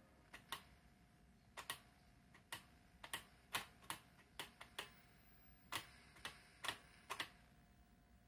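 Rotary selector knob of a Philips T12R630 transistorised black-and-white TV being turned by hand, clicking through its detents: about sixteen sharp, faint clicks at an uneven pace, stopping a little after seven seconds in.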